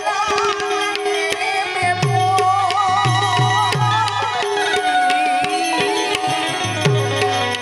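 Gujarati folk music played live: a tabla keeps a steady rhythm, its low drum strokes sliding down in pitch, under a melodic line with wavering, ornamented notes.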